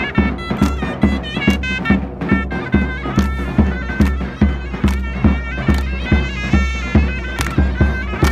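Loud folk dance music: a reed pipe plays a melody of short held notes over a steady bass drum beat.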